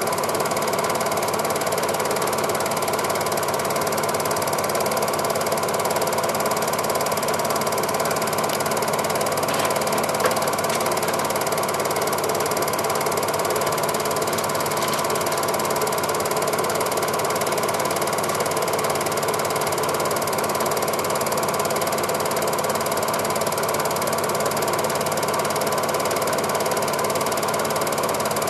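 Cine film projector running: a steady, even mechanical clatter of the film-advance mechanism.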